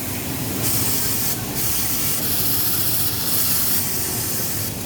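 Pegasus M952 industrial overlock sewing machine running at speed: a steady high-speed rattle with a hiss that swells and drops every second or so.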